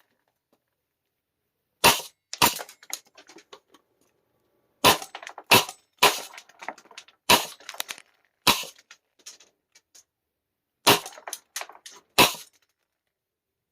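Gas-powered airsoft FLAK 10 firing about nine loud sharp shots, singly and in quick pairs a few seconds apart, each followed by a short patter of smaller clicks and rattles.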